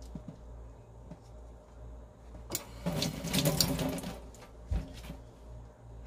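Tap water splashing onto abalone shells in a stainless steel sink for about a second and a half, starting midway. A steady low hum runs underneath, and a dull thump comes near the end.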